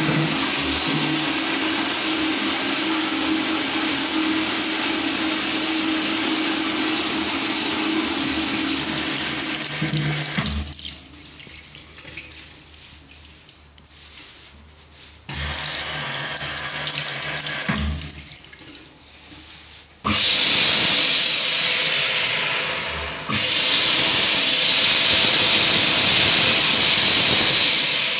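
Exeloo automatic toilet's water running steadily with a low motor hum for about ten seconds, then a quieter stretch with a brief hum, then two loud rushing hisses from about twenty seconds in.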